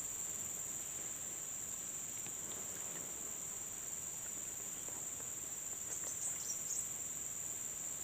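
Insect chorus: a steady high-pitched drone, with a few short chirps about six seconds in.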